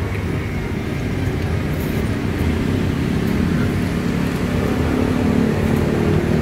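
Steady low rumble of nearby road traffic with an engine-like hum, growing slightly louder in the second half.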